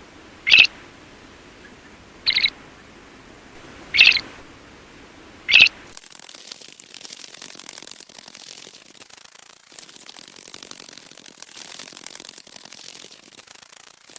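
A bird's short, sharp, high call repeated at even intervals, about every second and a half. About six seconds in it cuts to a steady hiss with faint crackling.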